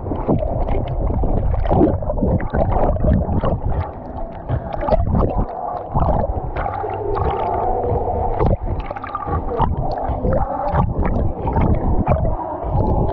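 Pool water splashing and gurgling right at a camera strapped to a swimming dog, the microphone dipping in and out of the water. It makes a dense, choppy churn of splashes, with a wavering tone under it in the second half.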